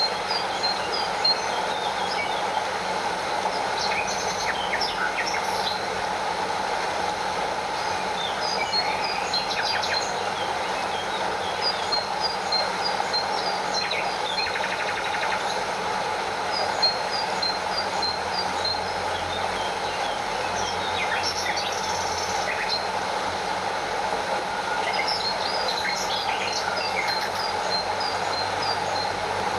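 Stream water running steadily over a small waterfall, with birds chirping now and then in runs of short, high notes.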